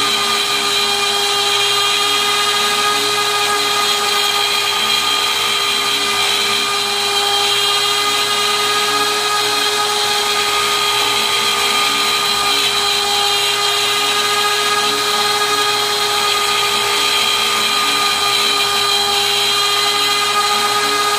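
Small Harbor Freight router on an MPCNC, running loud and steady as a dull two-flute upcut spiral bit helically plunges into aluminum. A lower whir rises and falls about once a second as the machine circles the bit down.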